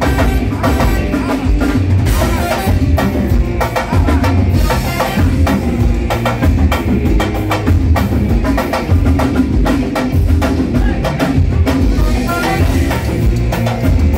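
A live band playing percussion-heavy music, with a section of drums keeping a driving beat.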